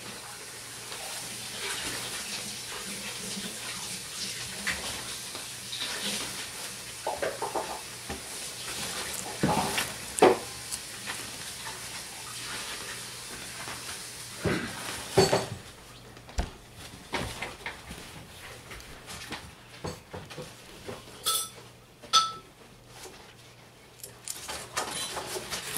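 Water running from a tap with dishes and cutlery clattering, as at a sink; the running water stops about sixteen seconds in, leaving scattered clinks and clicks.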